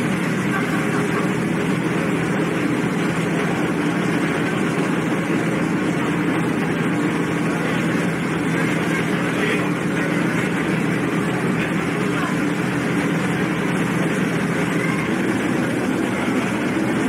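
Steady drone of a car ferry under way, its engines humming low beneath a constant wash of noise, heard from the passenger deck.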